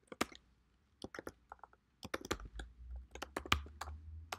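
Typing on a computer keyboard: a run of separate keystrokes, sparse in the first two seconds and quicker after, with a low rumble under the second half.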